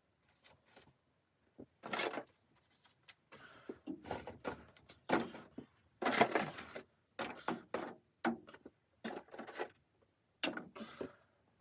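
Irregular rustling, crunching and knocking as camping gear is handled while a tent is set up: a string of short, uneven noises with sharp clicks between them.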